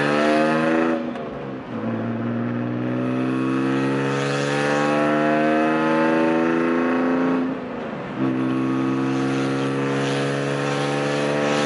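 BMW E46's loud engine and exhaust heard from inside the cabin under acceleration, the pitch climbing steadily through each gear. The note drops briefly at two gear shifts, about two seconds in and about eight seconds in.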